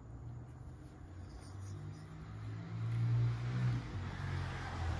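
A motor vehicle engine running in the background, a low hum that grows louder about three seconds in, with a rising hiss near the end.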